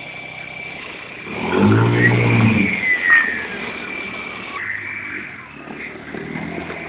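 Small 50cc quad engine revving hard for about a second and a half, with a falling whine, as its rear wheels spin in deep snow, then dropping back to a lower, steady run.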